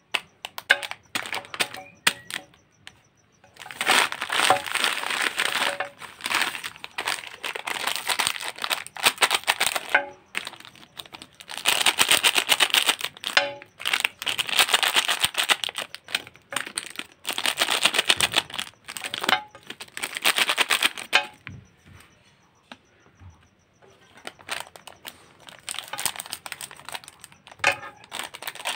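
Plastic lollipop wrappers crinkling and crackling as hands pick up and handle them, in loud stretches of several seconds with quieter pauses between, softer near the end.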